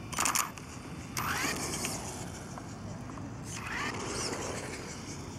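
Traxxas Rustler RC buggy, converted to a brushless motor, driving off. A short rushing noise comes just after the start, then the motor whines upward in pitch in two short bursts of acceleration, about a second in and again about three and a half seconds in.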